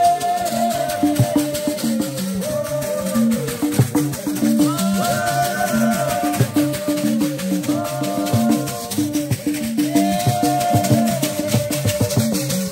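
Metal hand rattles shaken in a fast steady rhythm while kudu horns sound a repeating figure of short low notes at different pitches. Voices sing in phrases over them.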